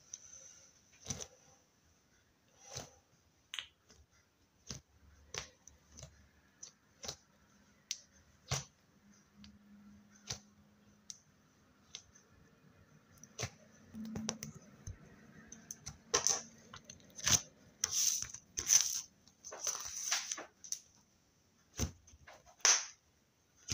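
Slime being handled for ASMR, making irregular sticky clicks and pops, with a run of louder, denser popping a little past the middle.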